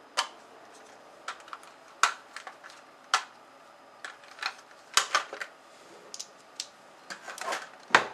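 Small hand tools and hard parts clicking and clattering against each other and a tabletop in an irregular series of sharp knocks, as someone rummages for a small screwdriver.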